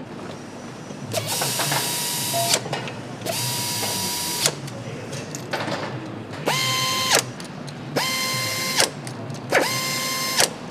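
Power tool driving fasteners on a motorcycle engine assembly line: five short runs of a steady whine, each about a second long and cut off with a sharp click.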